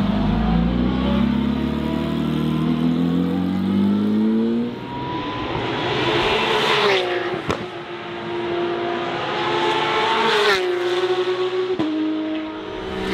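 Porsche 992 Cup race car's flat-six engine accelerating hard, its pitch climbing steadily and then rising and dropping sharply twice as it changes gear.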